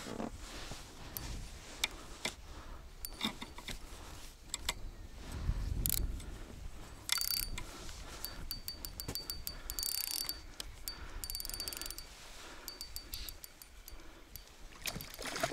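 Spinning reel being cranked as a hooked fish is reeled in: bursts of rapid mechanical ticking with a thin whine, among scattered clicks and knocks.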